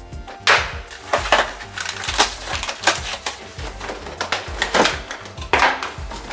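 Cardboard packaging being handled: the box's paper and cardboard insert rustling, creasing and knocking in irregular bursts as parts are lifted out, over quiet background music.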